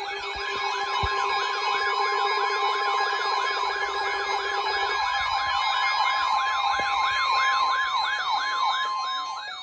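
Electronic siren sweeping rapidly up and down, about three times a second, over the steady warning alarm tone of a NOAA Weather Radio alert; the steady tone cuts off near the end. A low buzzing pulse underneath stops about halfway.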